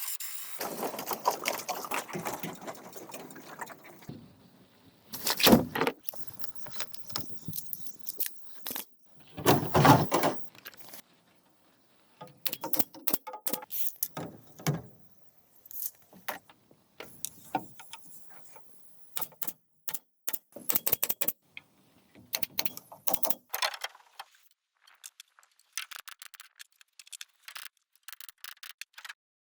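Bamboo being worked by hand: irregular knocks, clatters and rattles, with two heavier thuds about five and ten seconds in and lighter, scattered taps near the end.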